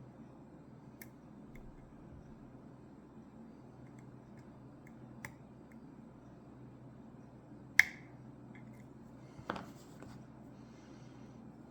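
Faint small metallic ticks from lock picks working the pins of a Ruko 600 pin-tumbler lock, with one sharp loud click about eight seconds in and a softer knock about a second and a half later, over a steady low hum.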